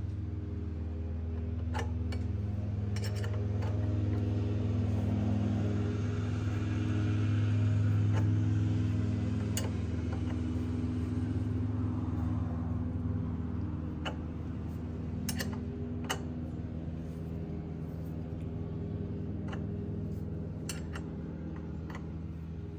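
Steady low mechanical hum that swells to its loudest about eight seconds in and then eases off. Scattered sharp metallic clicks and clinks sound over it.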